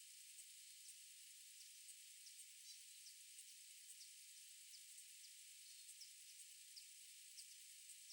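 Near-silent mountain-lake ambience: a faint steady high hiss with brief, high-pitched falling chirps about once or twice a second.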